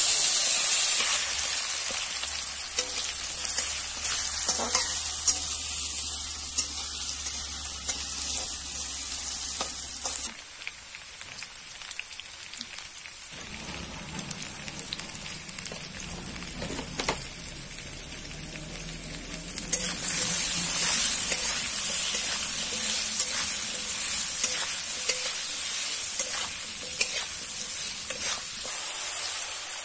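Potato and taro root pieces frying and sizzling in a metal kadai, with small clicks and scrapes from a flat metal spatula stirring them. The sizzle drops abruptly to a softer hiss about ten seconds in and grows louder again about twenty seconds in.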